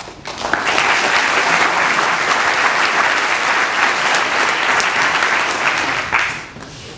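A large audience applauding, swelling within the first second, holding steady, then dying away about six seconds in.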